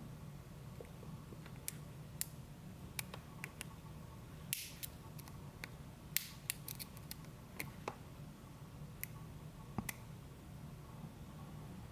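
Scattered small metallic clicks and ticks at irregular intervals as an Abloy DiskLock disc-detainer padlock is worked apart by hand with small tools, over a steady low hum.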